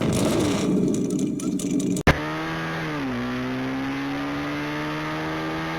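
Honda Monkey's bored-up 88cc single-cylinder four-stroke engine running through its muffler. It runs loud and rough for about two seconds, then a sudden cut leads to a steady idle, which sags slightly in pitch about a second later.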